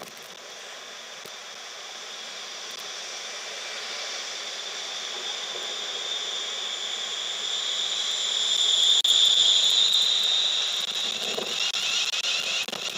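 Class 350 Desiro electric multiple unit running in along the platform at close range: a high whine over a rushing noise grows steadily louder as it passes, loudest about nine seconds in.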